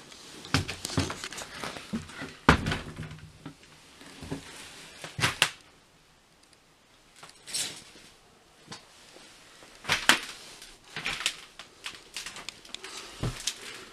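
Irregular knocks, scuffs and crunches of footsteps on a floor strewn with broken linoleum, glass and loose boards, with a quiet stretch about halfway through.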